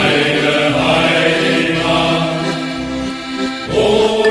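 Background music with sustained, layered held notes, which change to a new chord just before the end.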